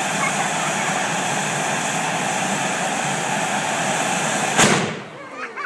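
Hand-held tezutsu firework tube spraying sparks with a steady, loud rushing hiss, ending about four and a half seconds in with a single sharp bang as the tube's bottom blows out (the hane), after which the rush stops.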